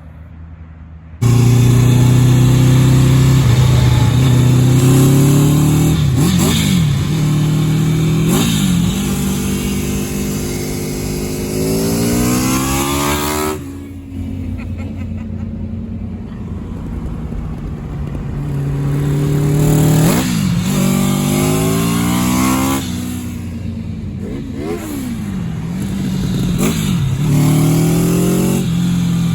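1984 Honda Nighthawk CB700SC inline-four engine running loud through its exhaust and being revved repeatedly, the pitch climbing and falling with each rev. It cuts in suddenly about a second in and eases lower about halfway through.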